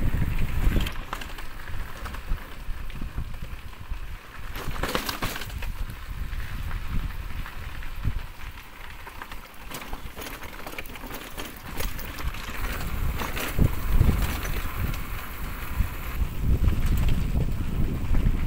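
Wind buffeting the microphone in uneven gusts, a low rumble that is heaviest at the start and again in the last few seconds, over a steady hiss.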